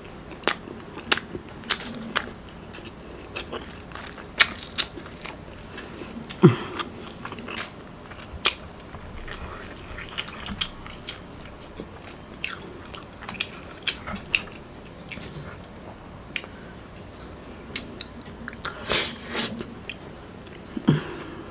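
Close-miked chewing of Chinese takeout food: irregular wet smacks and soft crunches from the mouth, with a short falling hum about six seconds in and again near the end.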